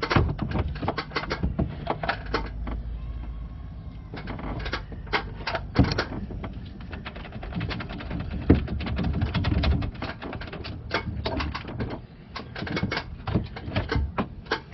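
Irregular light clicks and knocks, some in quick clusters, over a low steady hum.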